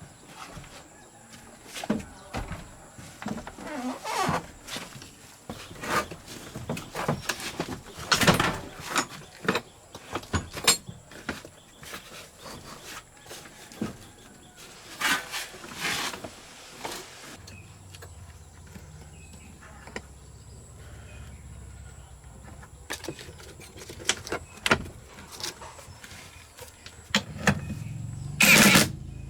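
Irregular knocks, clanks and short scrapes of hand work on metal parts. A low steady hum comes in a little past halfway, and a run of loud sharp strikes comes near the end.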